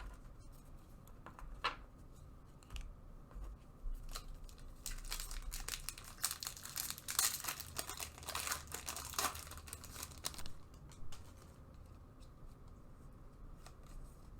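Plastic wrapper of a Bowman baseball card pack being torn open and crinkled. Scattered crackles are densest in the middle stretch.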